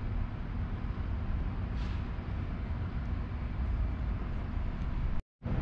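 Steady low outdoor rumble of background noise, with no distinct event in it; the sound cuts out completely for a split second about five seconds in.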